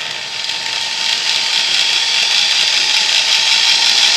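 Electric drill running at its lowest trigger speed, spinning the shaft of an electric motor used as a homemade AC generator. The sound builds over the first second or so, then holds steady with a thin, even whine.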